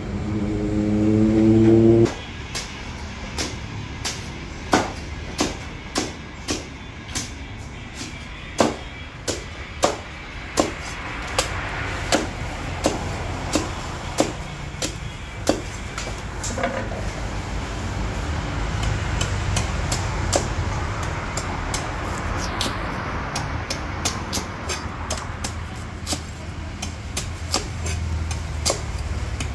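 A large knife chopping into the husk of a young green coconut: sharp strikes, mostly half a second to a second apart and uneven, over a steady low hum. A loud rising motor-like tone sounds for the first two seconds.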